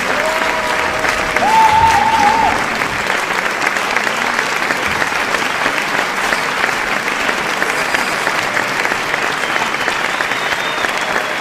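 Audience applauding steadily, with dense clapping and cheering voices. A long held cheer steps up in pitch in the first two seconds or so.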